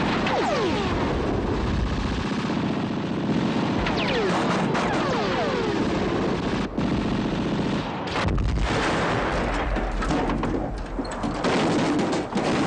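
Heavy gunfire: a continuous din of machine-gun bursts and shots, with falling whistles about half a second and four seconds in, and a run of sharp shots or blasts in the last few seconds.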